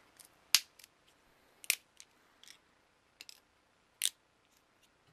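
Irregular sharp plastic clicks and snaps, a few louder ones among smaller ticks, as the plastic front of a clock radio's LED display is pried off its circuit board with a small metal tool.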